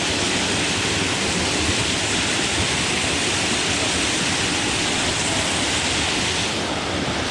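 Steady rushing noise with a low rumble, even throughout.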